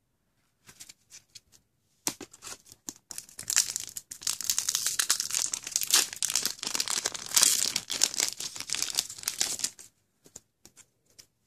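Foil wrapper of a Force of Will trading-card booster pack being torn open and pulled apart by hand: a dense, uneven crinkling and tearing crackle lasting several seconds, loudest about a third of the way in and again past the middle. It stops short of the end, leaving a few faint ticks.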